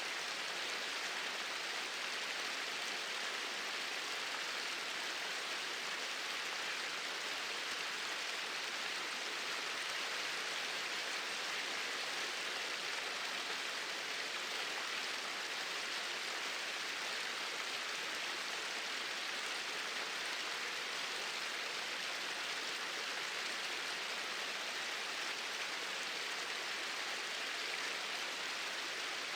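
Small waterfall pouring steadily over rocks into a stream, an even rushing hiss of falling water with no change in level.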